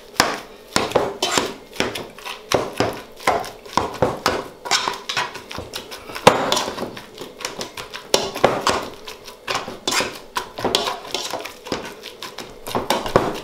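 Metal potato masher knocking and scraping against the inside of a stainless steel pot while mashing boiled potatoes with margarine: a steady, uneven run of clacks, several a second, with one louder knock a little past the middle.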